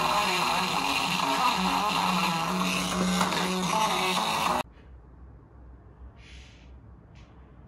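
Music received over a 433 MHz radio link and played through a small speaker, buried in a lot of hiss. It cuts off suddenly about four and a half seconds in, leaving only faint small noises.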